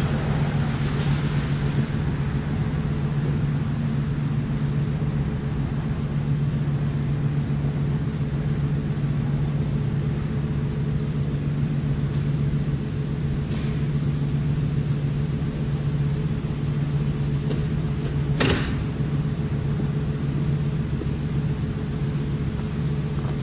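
An engine idling steadily at a constant low pitch, with one sharp click or knock about three-quarters of the way through.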